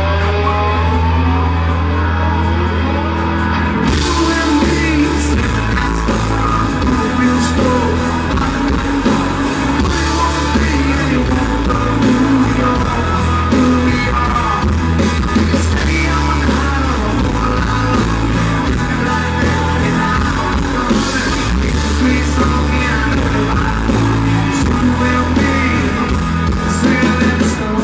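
A country band playing live and loud, with a moving bass line under guitar and keyboards. About four seconds in, the band gets fuller and brighter.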